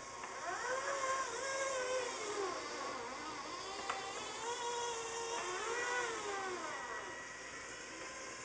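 Electric drive motors and gearing of a model Marion 182M rope shovel whining as it hoists and swings its dipper. The pitch rises and falls in several swells as the motors speed up and slow down. There is a single sharp click about four seconds in.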